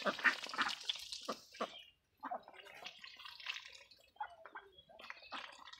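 Domestic ducks dabbling in a bowl of watery mash, their bills slapping, slurping and splashing in the liquid in quick irregular bursts. Busy for the first two seconds, then a short pause and sparser splashes.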